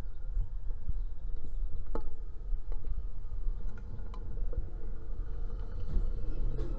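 Attic fan running: a steady low rumble with a constant hum, and a few light ticks scattered through it.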